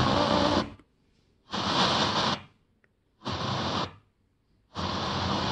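FM radio tuner hissing static in short, even bursts, four of them about a second and a half apart with silence between, as the tuner steps across frequencies where no station comes in.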